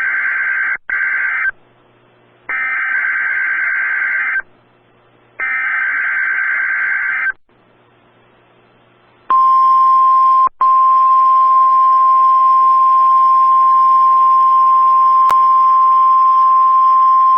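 NOAA Weather Radio Emergency Alert System (SAME) header: three buzzy digital data bursts, each a second or two long with short pauses between, carrying the coded alert for a tornado watch. About nine seconds in, the steady single-pitch weather radio warning alarm tone starts, drops out for an instant a second later, and then holds on.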